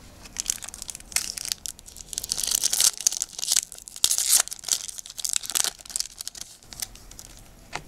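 Foil Yu-Gi-Oh booster pack handled and torn open by hand: a run of crinkles and ripping crackles, loudest around the middle, thinning out near the end.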